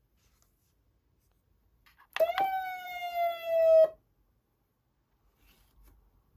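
Code 3 Micro Com2 police siren amplifier sounding a short electronic siren tone through its speaker. It sweeps quickly up into a buzzy, strongly overtoned tone that sags slightly in pitch for about a second and a half, then cuts off abruptly.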